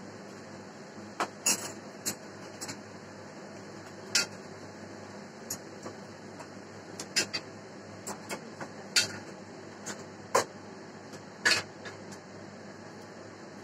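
Irregular sharp clicks and knocks, about twenty of them, scattered over a steady hiss and hum.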